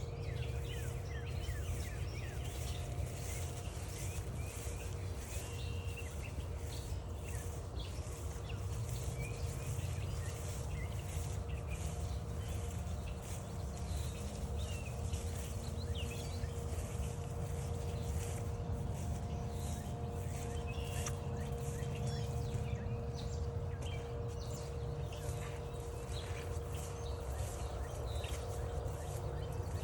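Assorted songbirds chirping and calling, with many short high notes scattered through, over a steady low rumble and a faint steady hum.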